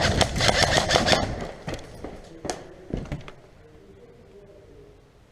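Airsoft gun firing a rapid rattling burst for about the first second and a half, followed by a few single sharp clicks a second or so apart before the sound falls faint.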